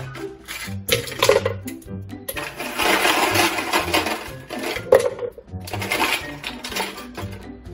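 Background music, with a few sharp clinks of ice cubes dropping into a blender jar of milk and yogurt.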